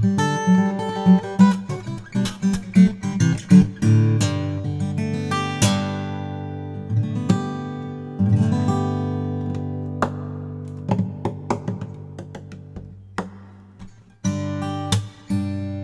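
Takamine PTU200 SP-K dreadnought acoustic guitar played solo: picked single notes and chords. Chords struck about four and eight seconds in are left to ring and die away. After a brief pause near the end, playing picks up again.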